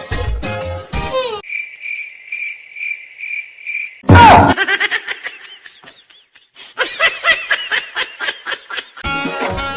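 Cartoon sound effects: a crickets-chirping gag for about three seconds, about two chirps a second, then a sudden loud sound falling in pitch, followed by quick, high, squeaky chirping sounds; music before and after.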